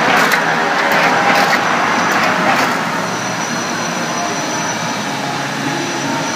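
Industrial plastics-processing machinery running. For the first three seconds the noise swells about once a second; after that it runs steadier with a faint high whine.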